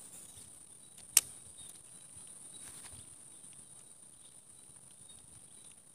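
Steady high-pitched insect drone from the swamp, with one sharp click about a second in.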